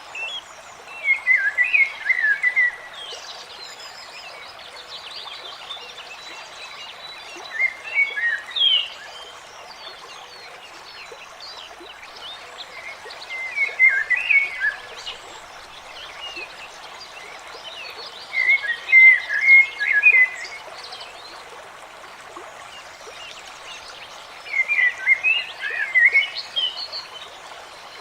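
A songbird singing the same short, quick warbling phrase five times, about every five to six seconds, over a steady background hiss of forest ambience.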